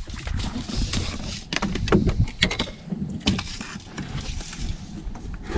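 Low, steady rumble of wind and water around a small outrigger boat, with scattered light clicks and knocks.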